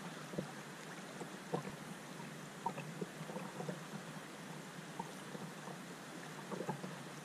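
River water running and rippling around rocks, a steady faint wash with small irregular splashes and gurgles close by.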